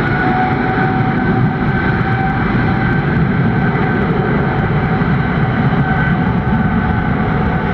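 Boeing 777-300's jet engines spooling up for takeoff: a loud, steady grinding rumble with a held whine over it.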